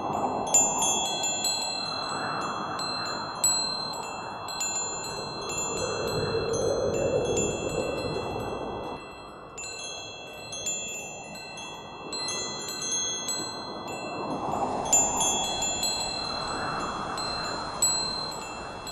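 Metal wind chimes tinkling, many high ringing notes struck at irregular moments, over a soft rushing noise that swells and fades like gusts of wind.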